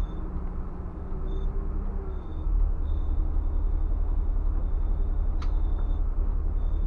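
Scania bus engine and drivetrain heard from the driver's cab as a steady low rumble while the bus moves at low speed. The rumble eases for the first couple of seconds with a steady hum over it, then picks up again about two and a half seconds in. A single sharp click sounds about five and a half seconds in.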